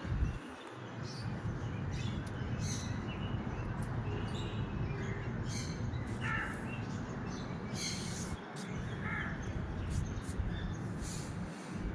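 Birds calling outdoors, a few short, separate calls over a steady low rumble.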